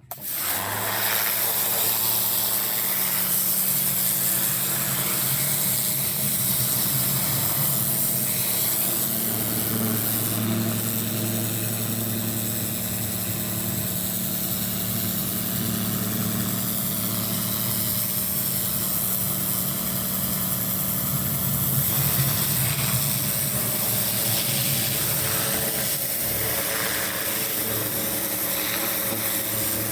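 Petrol pressure washer running steadily, its engine humming under the hiss of the water spray.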